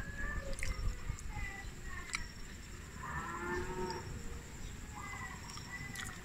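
A cow mooing once, about three seconds in, for about a second, with a few short high chirps and light clicks around it.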